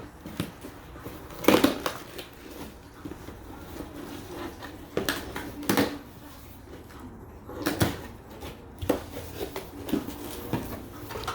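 A cardboard box being cut and pulled open by hand: irregular crackling, rustling and tearing of cardboard and tape, with several sharp snaps.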